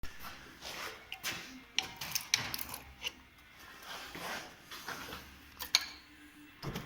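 Irregular clicks, taps and short scrapes of hand tools and small metal parts being handled during engine work, with a few sharper clicks.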